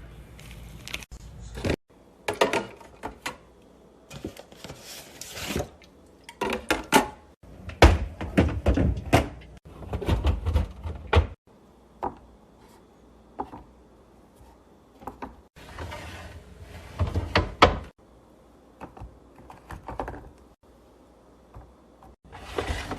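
Plastic containers and groceries being handled and set down while a refrigerator is organized: a series of knocks, clunks and clatters, with drawers or doors opening and closing. The sound comes in clusters that stop abruptly every few seconds.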